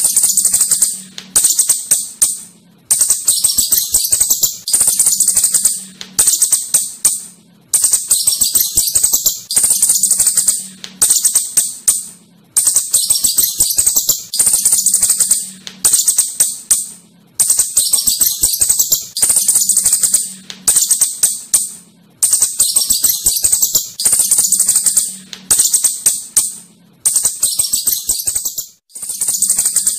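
Asian house shrew chittering: a rapid, high-pitched rattling twitter in repeated bursts of a second or two with short gaps between them.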